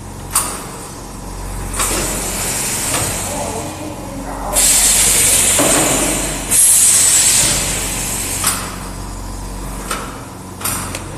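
High-frequency welding and embossing cutting machine working, with long bursts of compressed-air hiss and several sharp clicks as the press cycles, over a steady low hum.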